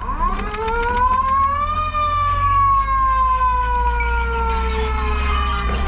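Fire truck siren giving one wail: its pitch climbs quickly for about two seconds, then falls slowly, over a low steady rumble.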